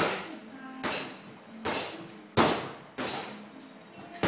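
Gloved punches and a kick landing on a hanging heavy punching bag: about six sharp thuds at an uneven pace, each with a short ringing tail.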